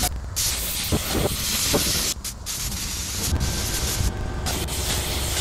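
Air-powered paint spray gun hissing as it sprays, the trigger let off briefly about three times, over a steady low rumble.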